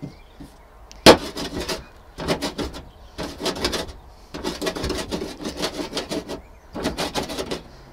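Handheld herb cutter chopping wild garlic leaves on a board: a sharp knock about a second in, then repeated bursts of rapid clicking, scraping strokes with short pauses between them.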